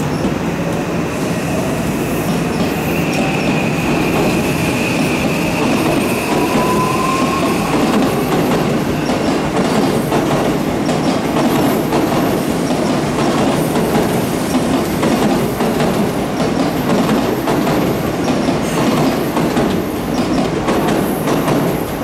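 Odakyu 5000 series ten-car electric commuter train passing close by: a loud, steady rumble of wheels on rail, with a faint rising whine and a thin high tone over the first several seconds, then repeated clicking of the wheels over the rail joints.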